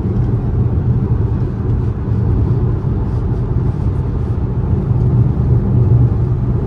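Road and engine noise inside the cabin of a moving Kia car: a steady low drone.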